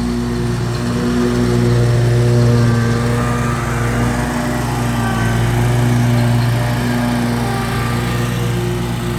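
Gravely Pro-Turn zero-turn riding mower running steadily while mowing grass, its engine note rising and easing a little as it drives and turns.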